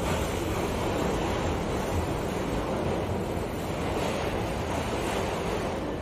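Steady running noise of a subway car in motion, heard from inside the car.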